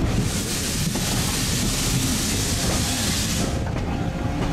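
A diesel-hauled passenger carriage rumbling along the rails. A steady hiss lies over the rumble from the start and stops about three and a half seconds in.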